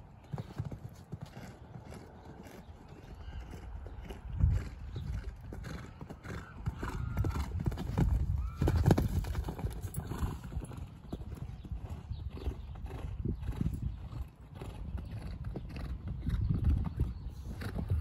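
A horse cantering on a sand arena: the beat of its hooves on the footing, with two louder thumps about four and nine seconds in.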